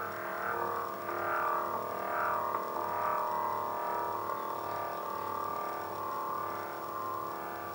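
Silver ForeverSpin metal spinning top spinning on a steel spinning plate: a steady ringing drone of several tones with a slow, even pulsing wobble.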